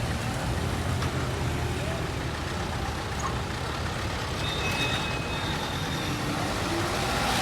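Roadside traffic: heavy-vehicle engines running with a steady low rumble over road noise. About five seconds in there is a brief faint high-pitched tone.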